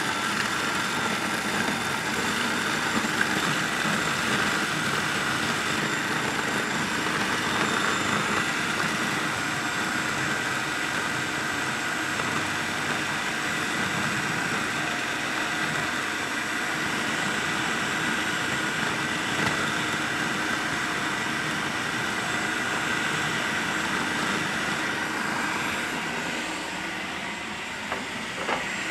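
Electric food processor running steadily, its motor whining at a constant pitch as it grinds plain biscuits into crumbs.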